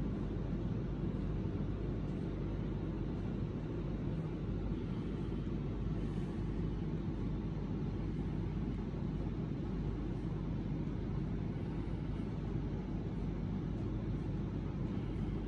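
Steady low rumble with no distinct events, even in level throughout.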